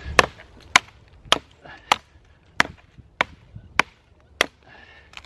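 Small hatchet chopping dry dead sticks into firewood, about eight sharp even strikes roughly every half second.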